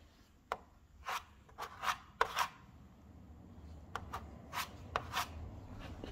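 Filler spreader scraped across body filler on a car's steel body panel: about a dozen short scraping strokes, several in quick pairs, with a pause of about a second and a half in the middle.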